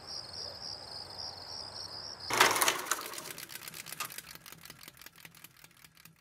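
Logo sound effect: a faint, high, evenly pulsing rattle, then about two seconds in a sudden loud hit followed by a rapid run of clicks that fades away.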